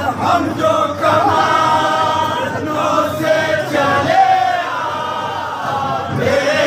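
A group of men chanting a nauha, a Muharram lament, together in long held, wavering sung lines.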